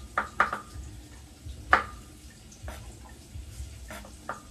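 Kitchen knife cutting okra pods in half on a wooden chopping board: about six or seven irregular sharp taps of the blade on the board, each with a short ring, the loudest near the middle.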